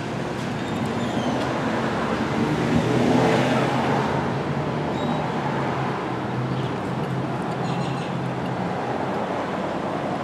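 Road traffic: a car engine running close by over a steady traffic hum, swelling a little around three to four seconds in.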